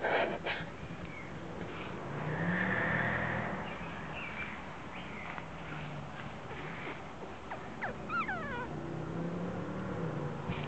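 Havanese puppies playing outdoors, with a short high falling whimper about eight seconds in. A low rumbling swell rises and fades around two to three seconds in.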